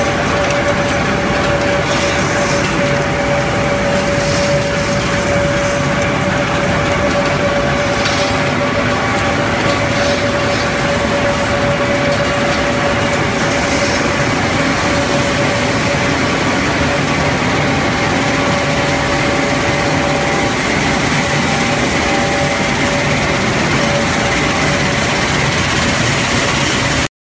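Wood sawdust pellet production line machinery running: a loud, steady mechanical din with a constant whine, over the rattle of pellets moving on the conveyors. It cuts off suddenly near the end.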